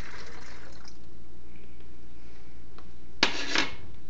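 Water poured from a glass cup through a plastic funnel into a plastic bottle, a splashing trickle that stops about a second in. Near the end, two sharp knocks close together as the glass cup is set down on the stovetop.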